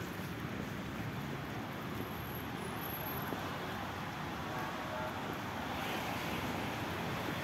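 Steady street noise in the rain: a continuous hiss of traffic on a wet road mixed with falling rain, swelling slightly near the end.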